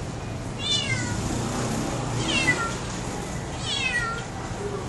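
A cat meowing three times, about a second and a half apart, each meow falling in pitch.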